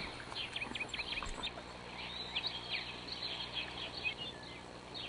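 Small birds chirping: a run of short, high chirps that come and go, thickest in the second half.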